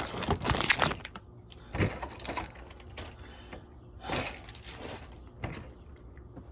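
Plastic snack packaging crinkling and rustling in several irregular bursts.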